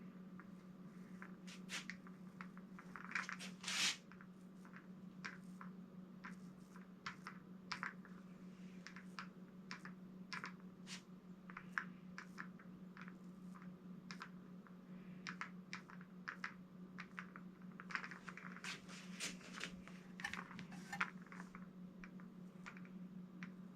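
Foam paint roller rolling wet paint onto the raised lettering of a street sign, a faint, irregular sticky crackling and clicking, over a steady low hum.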